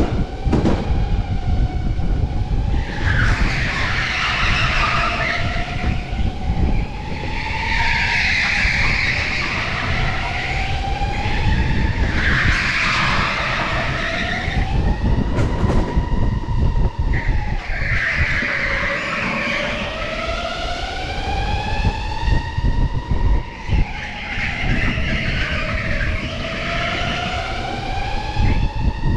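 Electric go-kart's motor whining, its pitch rising and falling as the kart speeds up and slows for the corners, heard from on board. Tyres squeal and scrub through each corner, roughly every five seconds.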